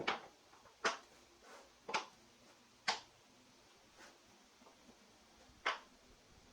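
Five sharp knocks, about one a second for the first four, then a pause of nearly three seconds before the fifth.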